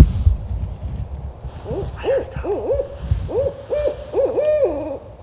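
Owl hooting: a quick run of about nine hoots, the last one drawn out and falling away. A low knock comes at the very start.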